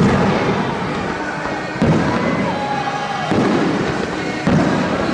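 Aerial firework shells bursting: three sudden booms about a second and a half apart, each trailing off in a rumbling echo.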